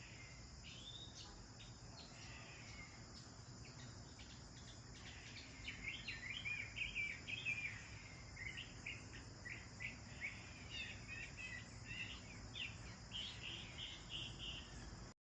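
House sparrows chirping, with quick short chirps that grow busy and louder in the middle, over a steady high insect drone. The sound cuts off abruptly just before the end.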